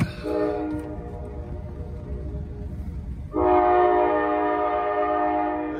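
Norfolk Southern freight locomotive air horn blowing a chord of several steady notes. It starts at the beginning, carries on more softly, then sounds much louder from about three and a half seconds in. A low rumble from the train runs underneath.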